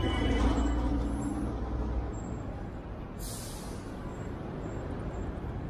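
Street traffic: a heavy vehicle's engine runs past, fading after about two seconds, then a short hiss of air brakes about three seconds in.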